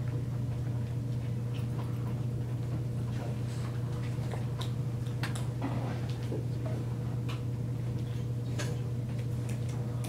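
Classroom room tone: a steady low hum with a few light clicks and ticks at irregular intervals.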